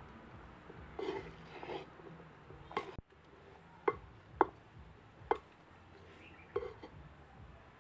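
Wooden spatula mixing chopped baby jackfruit, shallots and green chillies in a clay pot: a soft wet rustling of the pickle, then several sharp taps of the wood against the earthenware, the loudest about four and a half seconds in.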